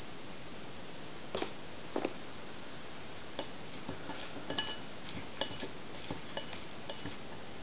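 Banana being cut into pieces over a ceramic bowl: irregular light clicks and taps as pieces and the cutting hand knock against the bowl, a few with a brief ring, over a steady hiss.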